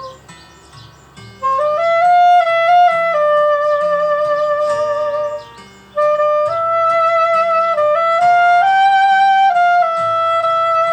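A saxophone plays a slow melody of long held notes over a soft, low accompaniment. The melody comes in about a second and a half in, breaks off briefly midway, then carries on.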